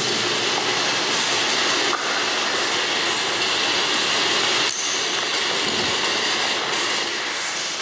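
A steady, loud rushing noise with a faint high hum through it, dipping briefly about two seconds and five seconds in.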